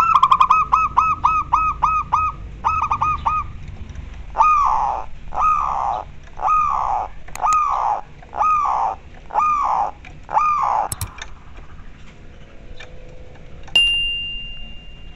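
Zebra dove (perkutut) cooing: a quick run of short rolling coos, about four a second, then six longer drawn-out coos about a second apart. Near the end come a sharp click and then a single high ringing chime.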